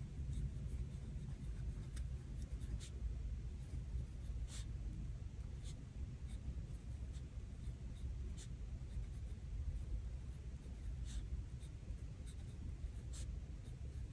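Pen writing by hand on a Hobonichi Cousin planner page: quiet scratching strokes with small light ticks scattered throughout.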